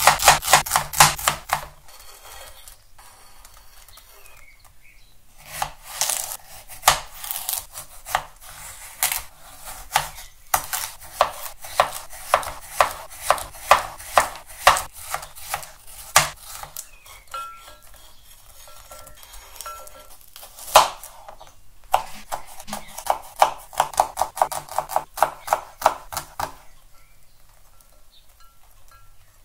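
Kitchen knife slicing vegetables on a plastic cutting board, in runs of sharp knocks at about three strokes a second with pauses between: shallot at the start, then cucumber, and later garlic.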